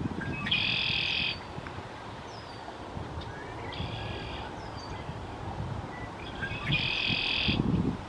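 Male red-winged blackbird singing its conk-la-ree song three times. Each song is short notes ending in a buzzy trill, over a low rumble of wind on the microphone.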